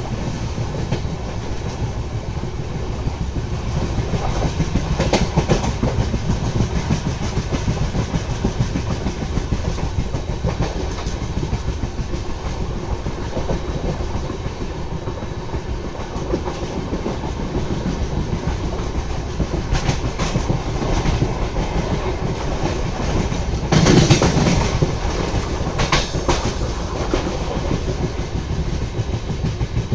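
Humsafar Express train running along the track: a steady rumble of wheels on rails with scattered clicks and clatter, and a louder clatter about 24 seconds in.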